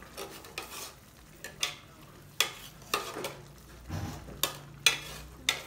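Metal ladle stirring soup in a metal cooking pot, knocking and scraping against the pot's side about eight times.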